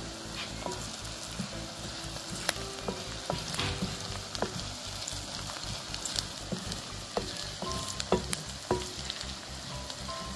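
Chopped onions, red chillies and curry leaves sizzling in hot oil in an earthenware clay pot as a wooden spoon stirs them, with scattered sharp clicks and knocks.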